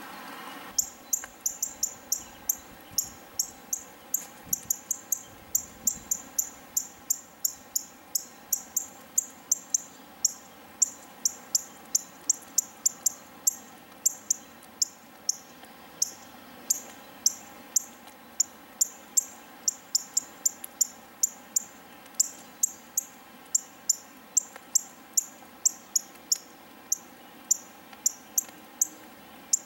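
Insect chirping outdoors: short, sharp, high-pitched chirps repeating about two or three times a second, starting about a second in.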